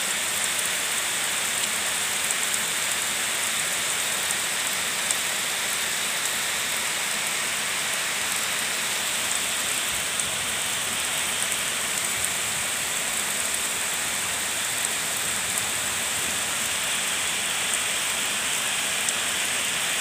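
Steady rushing hiss of heavy rain over a swollen, muddy waterfall in spate, with scattered small ticks of raindrops.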